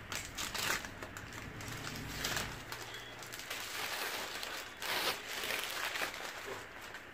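Sheets of paper, including a stencil transfer sheet, rustling and crinkling as they are handled and folded, in several short bursts, loudest about five seconds in.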